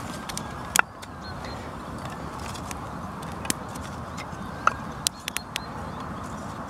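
Thin split wooden sticks clicking and knocking against each other as they are laid over a small, freshly lit wood fire, with a steady low hiss behind. There is one loud sharp click just under a second in, and a quick run of clicks later on.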